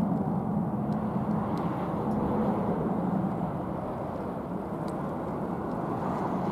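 Airbus A320-214's CFM56-5B jet engines heard from the ground as the airliner descends on approach to land: a steady, even engine noise.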